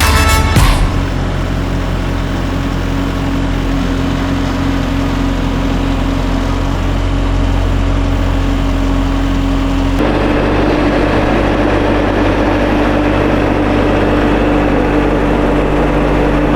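Skid steer engine running steadily at a constant speed. About ten seconds in, the sound switches abruptly to a different steady engine tone.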